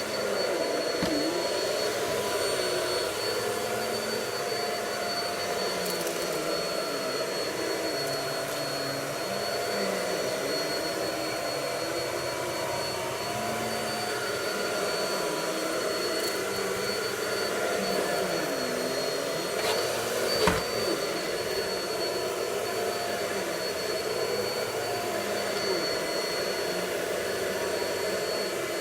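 Vacuum cleaner running continuously with a high steady whine, its motor pitch wavering slowly up and down as it is worked. One sharp knock about twenty seconds in.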